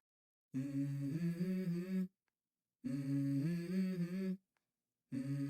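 A voice humming a short stepping melody in phrases of about a second and a half, with silent gaps between them: two full phrases, and a third starting near the end. It is the opening of a song's backing track.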